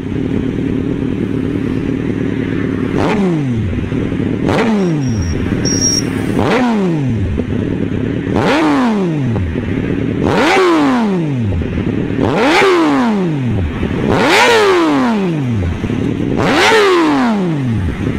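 Suzuki Hayabusa inline-four with aftermarket exhaust, standing still, idling and then revved eight times about every two seconds. Each blip climbs sharply and falls back to idle.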